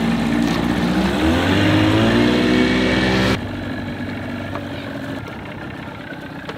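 Small boat's motor running, then revving up with a rising pitch about a second in as the boat gets under way. About three seconds in it cuts off abruptly to a much quieter, low engine hum.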